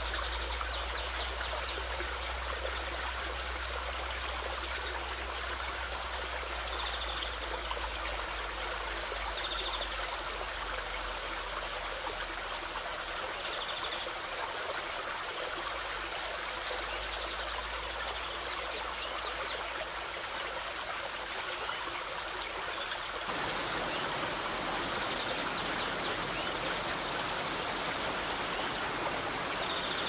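Running water of a stream or small waterfall, a steady, unbroken rush. About two-thirds of the way through it turns fuller and a little louder.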